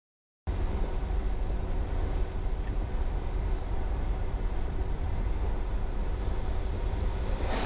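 Steady low rumble of road and wind noise from a Jeep driving on a wet road, starting half a second in. Near the end a brief rushing swish as an oncoming car passes.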